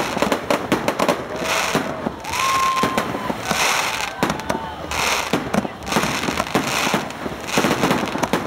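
Fireworks display: a rapid string of bangs and crackles from bursting aerial shells, with a few brief whistling tones among them.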